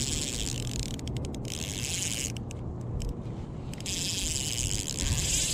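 Fishing reel being cranked while playing a hooked trout on light 2-lb line. The reeling stops briefly about a second in and again for over a second in the middle, then starts up again.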